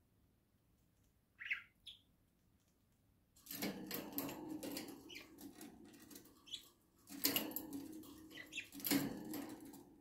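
Budgerigar gives a brief chirp, then from about three and a half seconds in comes wing flapping and scuffling against the cage wires, a dense run of rustles and clicks, with a short break around seven seconds before a second spell of it.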